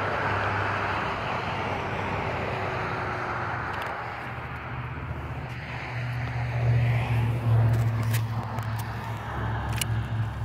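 Expanding spray foam hissing out of an aerosol can's straw nozzle in spurts, over a steady low hum that swells in the second half, with a few faint clicks near the end.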